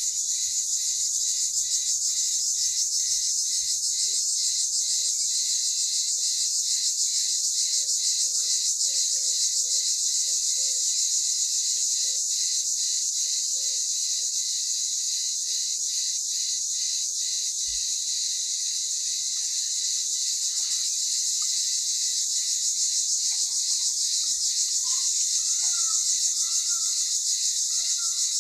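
A steady, high-pitched, finely pulsing chorus of insects such as crickets or grasshoppers. Faint bird calls come through underneath: a run of low repeated notes in the first half and short sliding chirps in the last third.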